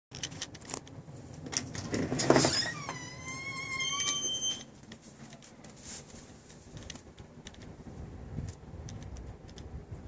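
A front door being unlatched and pulled open: clicks, a loud rush about two seconds in, then a high squeak of nearly two seconds as the door swings, followed by light handling clicks.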